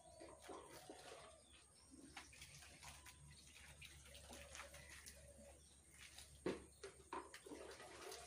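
Faint water splashing during a hair wash, with scattered small knocks; the loudest comes about six and a half seconds in. A bird calls faintly in the background.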